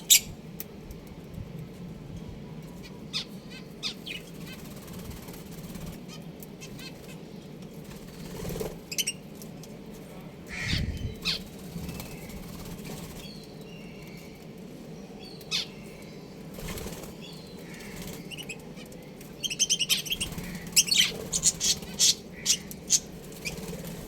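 Budgies in an aviary flapping their wings and giving scattered short chirps and clicks, with a burst of rapid chirping near the end, over a steady low hum.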